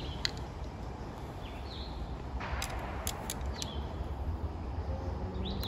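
Outdoor ambience: wind rumbling on the microphone, a couple of short bird chirps, and several light, sharp clicks.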